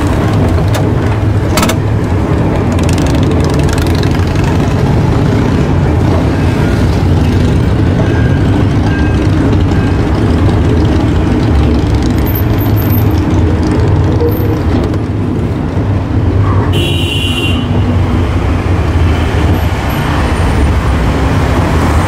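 Heritage tram SSB 24 running along street track, heard from on board: a steady low rumble of its motors and wheels on the rails. A brief high-pitched tone sounds about three quarters of the way through.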